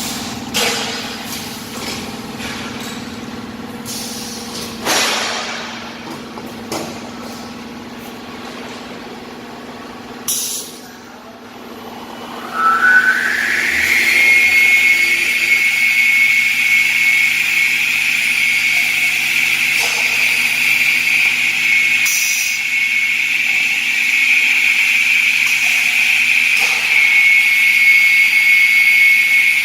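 Özçelik Meteor-II aluminium cutting machine: a low steady hum with a few knocks, then about twelve seconds in its saw motor starts, the whine rising in pitch over a second or so and then running steady at speed.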